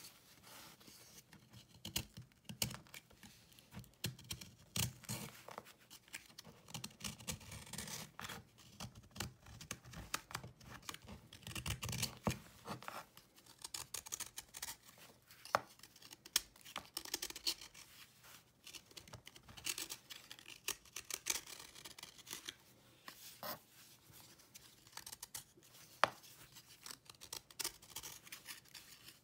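Utility-knife blade shaving a hard dried cake of cleaning paste, a run of irregular short scraping strokes as the chalky surface crumbles off, with a few sharper clicks.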